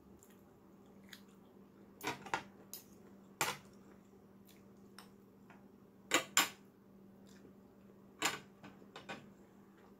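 Eating at a plate: a scattering of sharp clicks and taps from a fork against the plate and from seafood being handled and peeled, with soft chewing between them.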